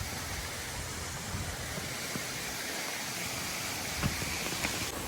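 Steady rushing of water from a creek's small cascades, with a couple of faint knocks about four seconds in, typical of a hiker scrambling over boulders.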